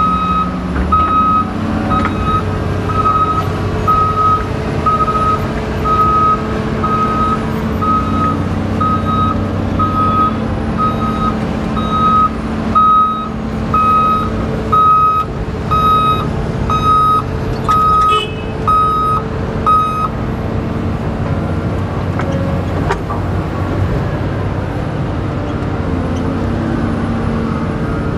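A heavy machine's backup alarm beeping steadily about once a second over a diesel engine running underneath. The beeping stops about two-thirds of the way through, while the engine keeps running.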